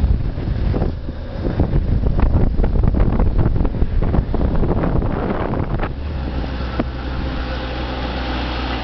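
Wind buffeting the microphone of a riding motorcycle, gusty for most of the time, over the motorcycle's engine running. About six seconds in the buffeting eases and the engine's steady hum comes through more plainly.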